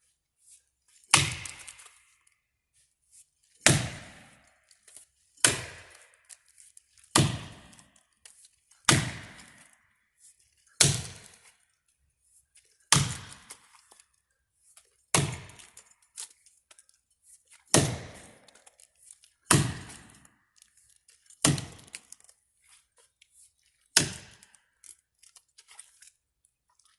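Seven Pines Forge American felling axe, 3.5-pound head on a 32-inch handle, chopping into the trunk of a dead ash tree: twelve sharp strikes, one about every two seconds.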